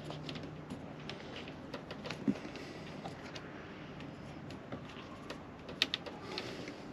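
Hands pressing a flexible trim strip into a caravan window frame's channel: scattered small clicks and rustles, with a sharper pair of clicks about six seconds in.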